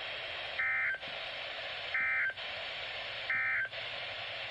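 NOAA Weather Radio's Emergency Alert System end-of-message code: three short squawks of digital data tone, about a second and a third apart, over steady radio static. The code marks the close of the Required Weekly Test message.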